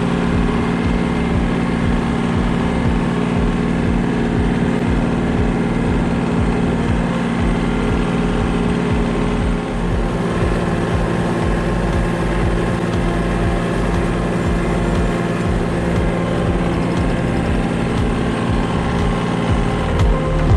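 Yanmar EG224 tractor's diesel engine running steadily under load.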